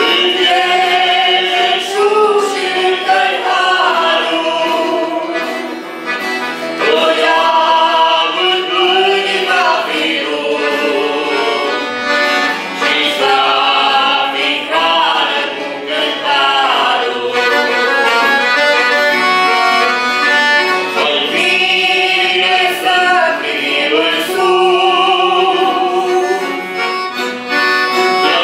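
A man and two women singing a hymn together, accompanied on a piano accordion.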